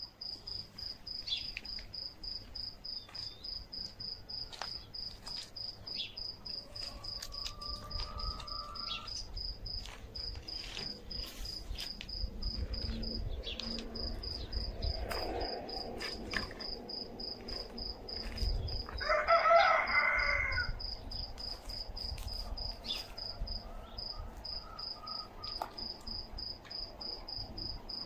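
Crickets chirping steadily in a fast, even pulsing trill. About two-thirds of the way through, a rooster crows once, the loudest sound.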